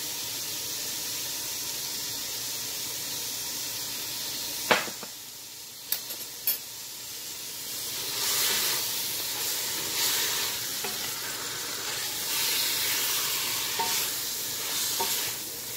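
Meat sizzling in a stainless steel pot, seasoned with salt, black pepper and spices, with a sharp knock about five seconds in. From about eight seconds in, a wooden spatula stirs the meat in uneven scraping strokes against the pot, and the sizzle swells with each stroke.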